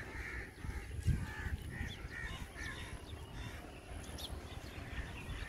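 Crows cawing repeatedly through the first half, with fainter high bird chirps later, over a steady low rumble.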